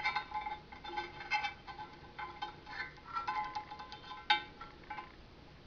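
Metal handlebar tubes of a Schwinn 430 elliptical clinking and rattling as they are handled, a string of light taps that each ring briefly, with sharper knocks at the start and about four seconds in.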